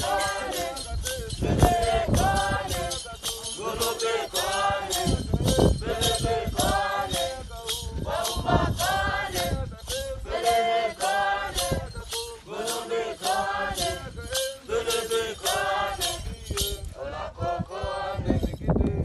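A group of Hadzabe dancers singing a traditional dance song in short repeated phrases, over an even shaken, rattling beat of about two to three strokes a second. The beat drops out near the end while the singing goes on.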